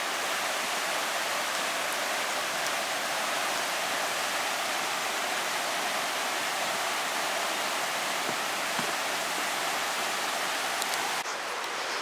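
Steady, even rushing of a stream's flowing water, with no breaks.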